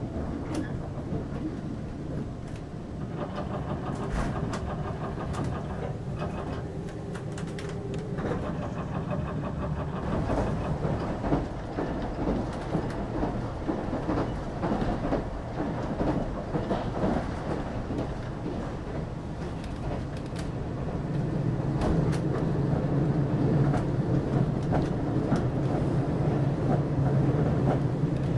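Limited express Yakumo train running at speed, heard from inside the carriage: a steady rumble with the wheels clicking over rail joints. A level-crossing warning bell rings for a few seconds a few seconds in, and the rumble grows louder near the end.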